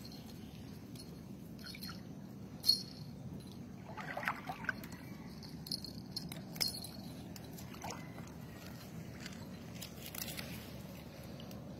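Canal water lapping and trickling around a foam surfboard as it is towed along, over a steady low rumble. Scattered light clicks and a few brief high tinkles come through, the sharpest about three seconds in.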